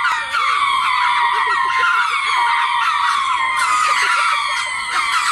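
A group of ring-tailed lemurs calling together from a tree: a dense, unbroken chorus of many overlapping high, gliding cries, agitated calling after a territorial fight with another lemur.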